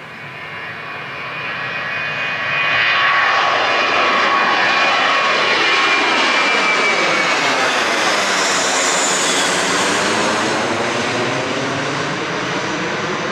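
An Airbus A321's turbofan engines at takeoff power as the airliner climbs out directly overhead: the jet noise with a high whine grows louder over the first three seconds, takes on a sweeping, phasing sound as the plane passes over, and starts to fade toward the end.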